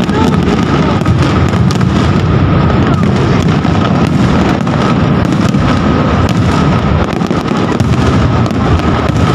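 Aerial fireworks shells bursting one after another without a break: a dense, loud run of booms and crackles.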